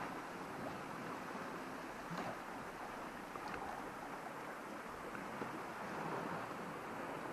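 Steady wash of the sea against a rocky shore, with a couple of faint ticks about two and three and a half seconds in.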